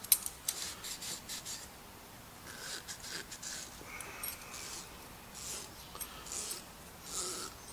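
A Scotch-Brite abrasive pad scrubbing the inside of a steel hydraulic cylinder gland by hand to scour off rust: a quick run of short scratchy strokes at first, then slower strokes on and off.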